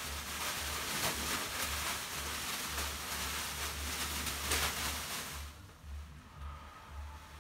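Leafy bath brooms (banya veniks) swished and waved over a person on the steam-room bench: a steady rustling whoosh with a few soft strokes, which dies down about five and a half seconds in.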